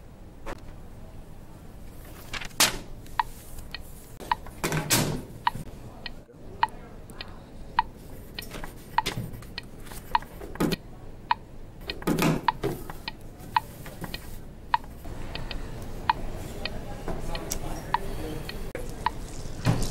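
A clock ticking steadily, a little under two ticks a second, each tick short and sharp. A few louder rustling noises break in, about five seconds in and again near twelve seconds.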